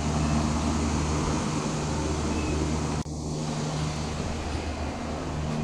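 Steady low mechanical hum over a hiss, like a fan or air-conditioning unit running. It briefly drops out about three seconds in.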